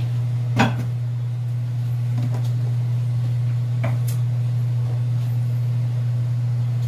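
A steady low hum runs throughout. Over it come a few sharp knocks of cookware being handled, the loudest just over half a second in and two more close together about four seconds in.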